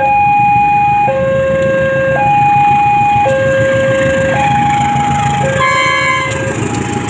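Level-crossing warning alarm sounding its two-tone electronic signal, a high note and a low note alternating about once a second. Under it, a CC201 diesel locomotive and its train rumble past, louder near the end, with a brief higher horn-like tone about six seconds in.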